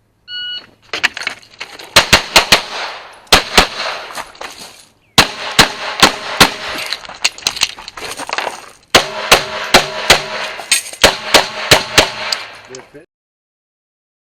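An electronic shot-timer start beep about half a second in. Then a pistol fires a long string of rapid shots in quick groups, with short breaks near five and nine seconds, and stops about a second before the end.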